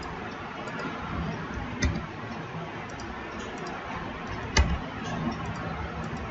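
Computer mouse clicks and keyboard key presses over a steady background hiss and low hum, with two sharper clicks about two seconds in and about four and a half seconds in.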